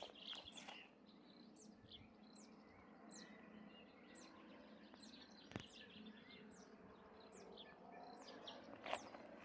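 Faint, repeated high chirps of small birds, each a quick falling note, several a second over a quiet rural background, with one sharp click a little past halfway.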